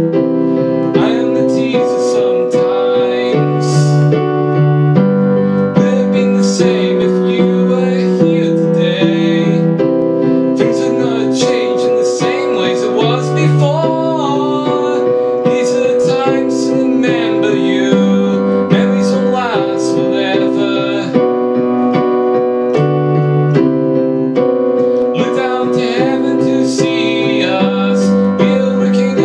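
Electronic keyboard played with a piano sound, chords held throughout, with a man singing a melody over it.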